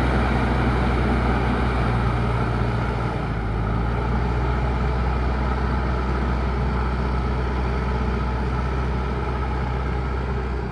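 JCB 3DX Super backhoe loader's diesel engine running steadily, with a slight dip in level about three seconds in.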